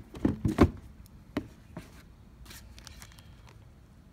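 Handling noise: a few short knocks and rubs in the first two seconds as a leather sneaker is shifted by hand and set down, the loudest about half a second in.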